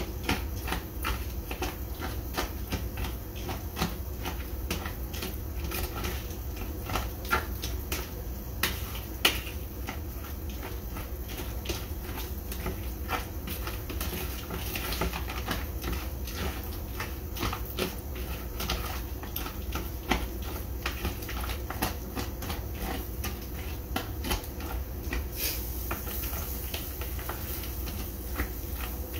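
Chicken frying in a pan: hot grease crackling and popping irregularly, several pops a second, over a steady low hum.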